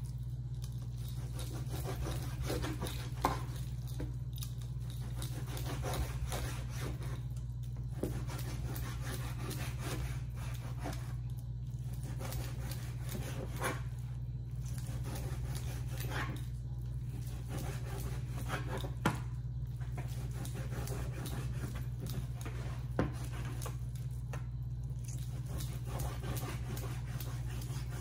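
Chef's knife cutting tenderized beef skirt steak on a plastic cutting board: soft scraping strokes with a few sharp taps of the blade on the board, the clearest near the two-thirds mark and about 23 seconds in. A steady low hum runs underneath.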